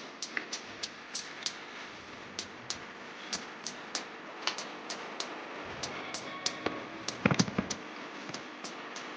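A pot of food cooking on the stove, with a steady hiss and irregular small pops and crackles, about two or three a second. About seven seconds in there is a short, louder clatter of knocks, like a utensil against the pot.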